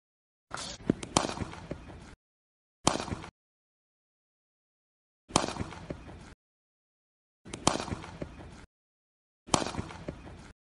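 Sharp cracks of a cricket bat striking a ball, about five of them, each followed by a second or so of noise that cuts off abruptly. The first stretch has two or three cracks close together, and there is complete silence between the stretches.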